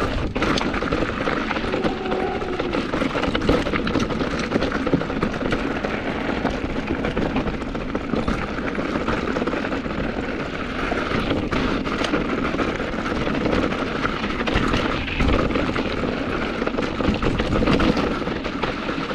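Santa Cruz mountain bike clattering down a rough rock descent: tyres pounding over rock and the bike rattling with many quick knocks over a steady rushing rumble.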